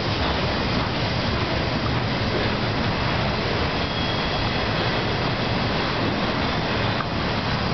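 Freight train's intermodal cars rolling past on steel wheels: a steady rumble of wheels on rail.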